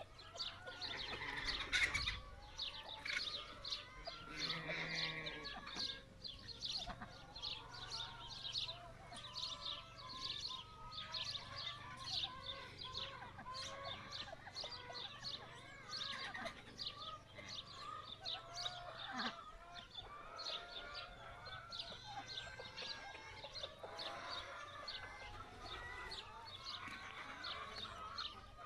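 Farmyard poultry calling: a continuous run of short high chirps and peeps, mixed with clucking calls.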